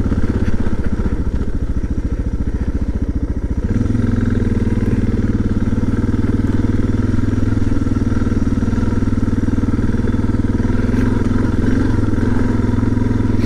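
Suzuki DR650's single-cylinder four-stroke engine running as the dual-sport bike is ridden along a gravel road. For the first few seconds its separate firing pulses are plain, then about four seconds in the note changes to a steadier, fuller drone.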